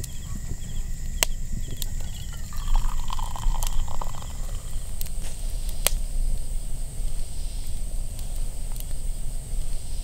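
Wood fire burning in a metal fire pit, crackling with a few sharp pops over a steady low rumble. Insects chirp faintly in the background.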